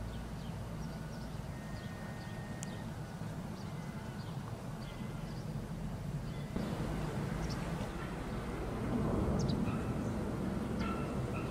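Outdoor marsh ambience: a steady low rumble that gets louder about two-thirds of the way in, with scattered short, faint bird chirps and a brief thin whistle early on.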